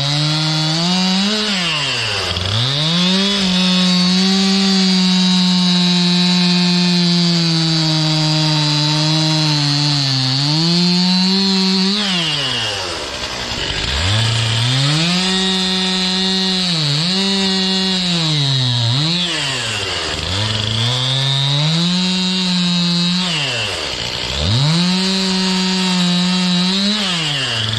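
Stihl MS 261 C two-stroke chainsaw cutting sugar maple firewood at high revs. The engine pitch sags and climbs back several times as the throttle is eased between cuts, twice dropping nearly to idle before revving up again.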